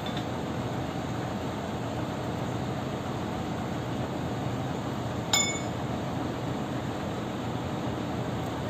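Heavy diesel engine running steadily at idle. About five seconds in, there is one sharp metal-on-metal clink that rings briefly, from work at the steel trailer deck.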